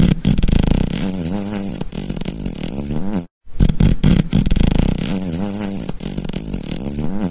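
Comic fart sound effect: a long, sputtering fart that starts with a few quick pops and then wobbles in pitch. It is played twice in a row with a brief gap, about three seconds in.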